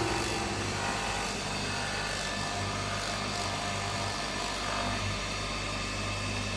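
Steady hum of a stone sphere-making (ball-rolling) machine running, its motor and drive giving an even drone with no change in pace.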